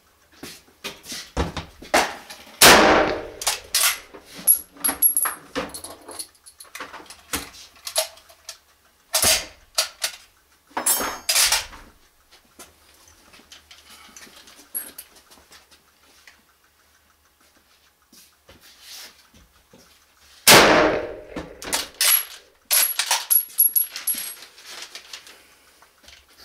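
Two shots from a .303 Lee-Enfield No. 1 Mk III bolt-action rifle, about three seconds in and again about twenty seconds in, each echoing in an indoor range. Between and after the shots come metallic clicks and clacks of the bolt being worked and high, brief ringing tinkles typical of ejected brass cases landing.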